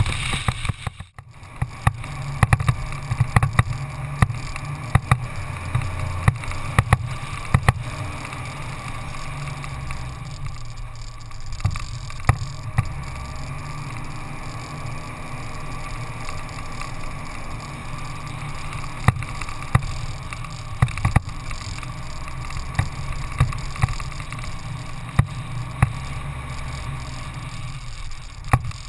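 Vehicle driving on a rough dirt track: a steady low rumble of engine, tyres and wind, broken by frequent sharp knocks and rattles from bumps, with a brief dip in the noise about a second in.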